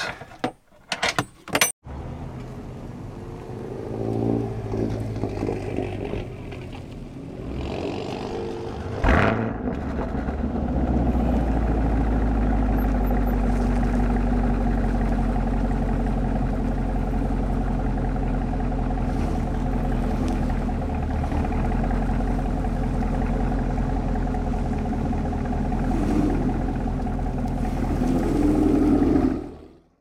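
Seat belt hardware clinking and rattling for the first couple of seconds. Then a Camaro's V8 engine starts with a sharp burst about nine seconds in and settles into a steady low idle, which fades out at the end.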